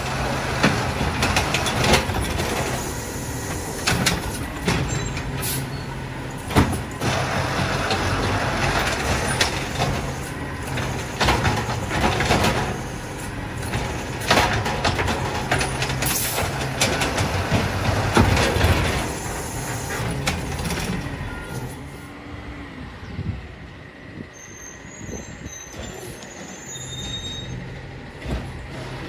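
Diesel Peterbilt 520 refuse truck with an Amrep automated side-loader running while the arm lifts and dumps wheeled carts, with repeated bangs as the carts are emptied into the hopper. About three-quarters of the way in it turns quieter.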